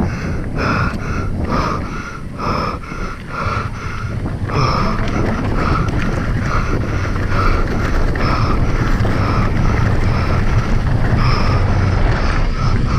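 Wind rushing over the microphone during a fast mountain-bike descent, with a regular pulse about once a second.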